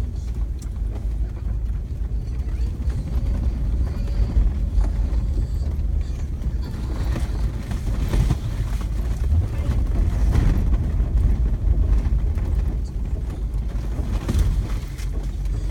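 Vehicle driving along a gravel track, heard from inside the cab: a steady low engine and road rumble.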